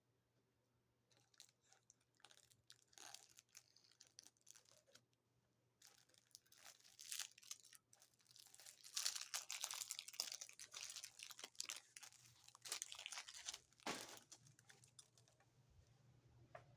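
Plastic wrapping on a microwave popcorn bag crinkling and tearing as it is opened, a faint run of crackles that gets busiest about nine to fourteen seconds in.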